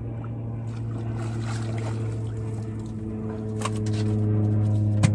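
Boat engine running steadily with an even, low hum that grows louder about three and a half seconds in. Some water sounds come with it, and a couple of sharp clicks near the end.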